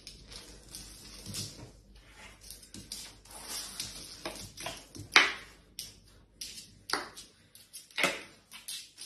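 A small black-and-white dog moving about on a tiled floor: scattered light taps and clicks, with a few sharper, louder ones about five, seven and eight seconds in.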